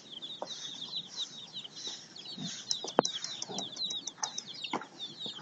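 Young chickens peeping over and over in short, high, falling notes, with a sharp click about three seconds in.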